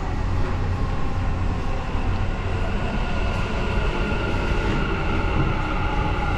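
Dubai Metro train pulling into the station platform: a steady low rumble with a level whine that grows stronger from about halfway through.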